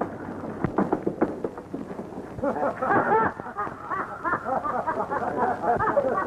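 An old film soundtrack with a dull, narrow sound: a few sharp knocks in the first two seconds, then a man's voice talking from about two and a half seconds in.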